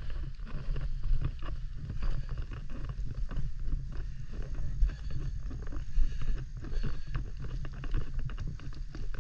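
Footsteps and light knocks on a plastic floating dock, a quick irregular patter over a steady low rumble.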